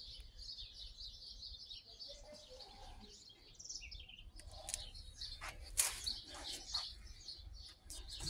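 Small birds chirping and twittering continuously, with a few sharp clicks a little over halfway through.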